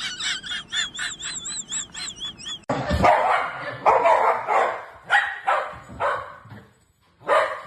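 A rapid run of short, high-pitched wavering squeaks, then, after an abrupt change, a dog barking in a series of loud short barks.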